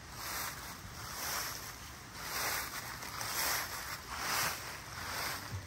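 Footsteps crunching and swishing through a thick layer of fallen maple leaves, about one step a second.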